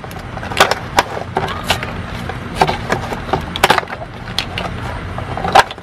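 Cardboard box being opened by hand: irregular crackles and snaps as a cardboard flap is pulled and handled.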